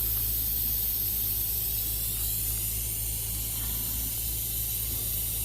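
Air hissing steadily out of a reamed puncture hole in a tyre, a constant high hiss, over a steady low hum.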